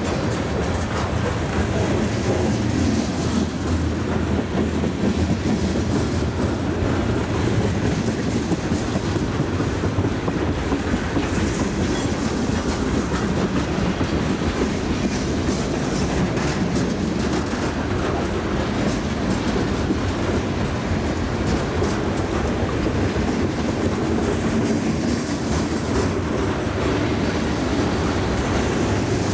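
Freight cars of a passing train rolling by at close range: a steady low rumble of steel wheels on the rails.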